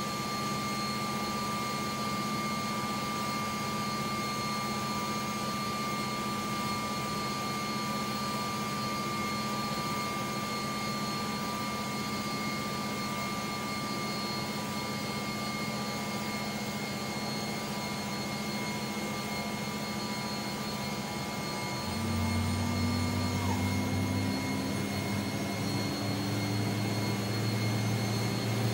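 UH-60A Black Hawk helicopter running, heard from its cabin beneath the main rotor: the twin turbine engines' steady whine over the rotor's drone. About 22 seconds in the sound gets louder, with a new low tone and a slowly rising tone joining in, while the high whine dips in pitch and fades.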